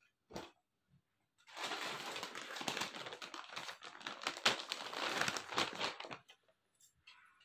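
Plastic shop bag crinkling and rustling as it is handled: a brief rustle at the start, then dense crinkling from about a second and a half in until about six seconds in.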